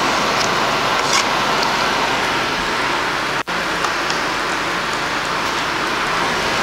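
Chopped onion and diced tomato sizzling in butter and oil in a hot frying pan: a steady frying hiss with small crackles.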